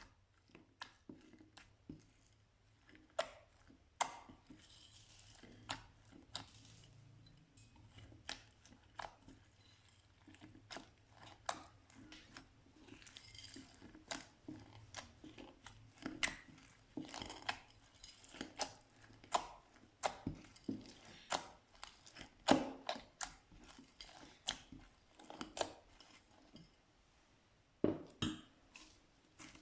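Slime being worked by hand, giving irregular sticky pops and clicks, about one or two a second.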